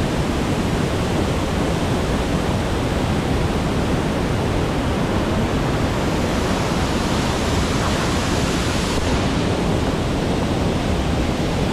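Steady rush of a powerful waterfall running heavy and murky after a night of heavy rain.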